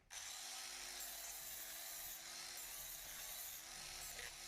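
Small grinder with a buffing disc running steadily against a plastic sheet, roughing off the oxidised surface layer before welding.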